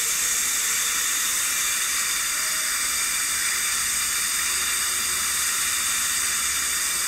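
A steady, even hiss that does not change, with a faint low hum beneath it.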